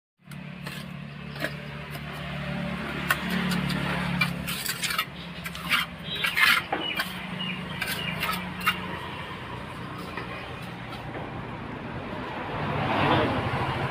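Steel mason's trowel scraping and tapping as mortar is spread and bricks are set, a run of scrapes and sharp knocks mostly in the first two-thirds, over a steady low engine hum that swells near the end.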